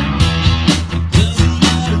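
Live rock band playing: electric guitars over drums keeping a steady beat of about two hits a second.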